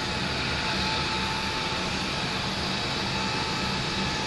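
Steady airport apron noise from aircraft and ground machinery: a continuous rushing hum with a thin, steady whine through it.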